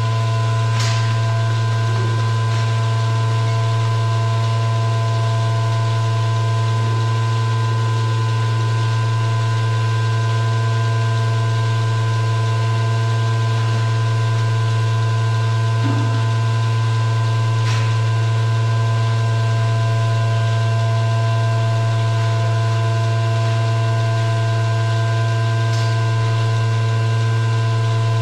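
A steady machine hum with a strong low drone and several fixed higher tones, unchanging throughout, with a few faint clicks.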